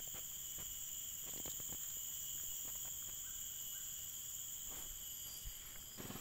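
Steady high-pitched insect chorus holding several even tones, with a few faint rustles and clicks of handling.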